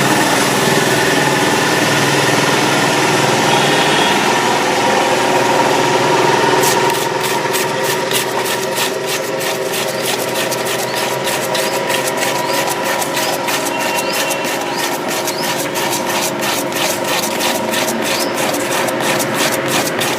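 A machine running steadily with a constant hum. About seven seconds in, a quick, regular clicking joins it, about three clicks a second.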